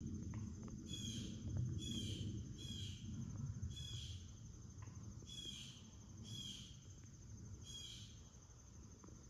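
Seven short, high bird calls about a second apart, over a steady high insect trill and a low rumble that fades after the first few seconds.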